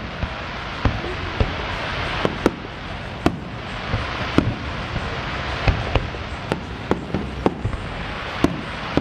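Aerial fireworks shells bursting in a quick, irregular run of sharp bangs, about one or two a second, over a steady hiss.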